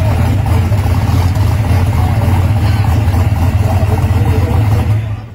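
A drag-race Ford Mustang's engine idling loud and steady, then cutting off suddenly about five seconds in.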